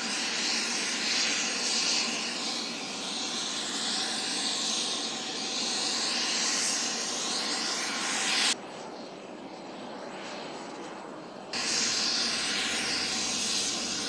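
Aircraft engines running steadily on an airport apron: a dense, even hiss and rush. About two-thirds of the way through, the sound drops abruptly to a duller, quieter rumble for about three seconds, then returns at full strength.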